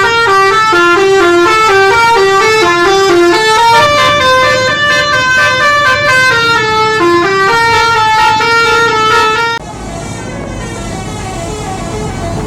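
Bus telolet (basuri) musical horn playing a quick multi-note tune, its notes changing about four times a second. About ten seconds in it cuts off sharply, leaving quieter vehicle noise with fainter horn notes.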